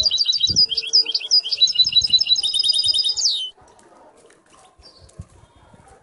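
Canary singing a fast phrase of quick, high, repeated chirping notes that speeds into a rapid trill and stops about three and a half seconds in.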